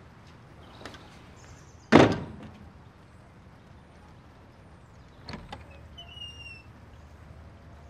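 A door slammed shut about two seconds in: one loud bang that dies away over about half a second. A few faint clicks follow later.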